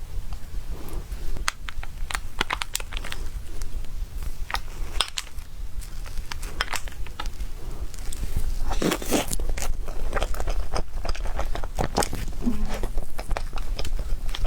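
Close-miked eating of a matcha tiger-skin mille-crepe cake: many short sticky clicks and smacks of biting and chewing, over a steady low hum.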